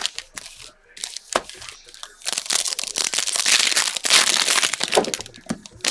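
Trading-card pack wrapper being torn open and crinkled by hand: sharp crackles, then a longer dense rustle of the wrapper through the middle.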